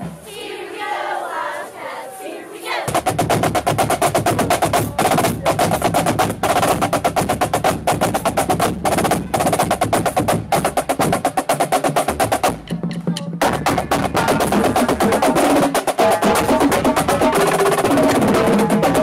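Shouting and cheering voices, then from about three seconds in a marching drumline playing a rapid cadence on snare and bass drums, with a brief break about twelve seconds in.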